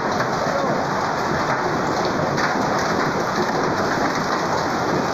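Heavy hail mixed with rain pelting grass and waterlogged ground in a dense, steady patter.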